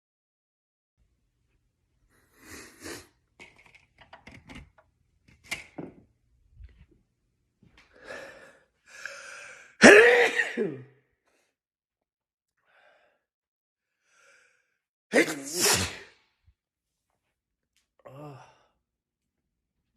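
A man sneezing twice: breathy build-up inhales, then a loud voiced sneeze about halfway through and a second sneeze about five seconds later, with small sniffs and clicks in between.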